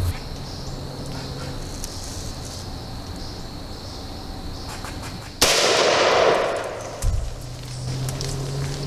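A single muzzleloader shot from a New England Firearms single-shot 20-gauge converted to fire as a muzzleloader: one sharp report about five seconds in, dying away over about a second and a half. A short dull low thump follows about a second and a half later.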